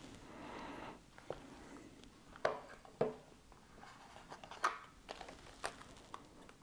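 Hands handling the earbuds' white cardboard box and inner tray: a soft rustle in the first second, then several light, separate taps and clicks.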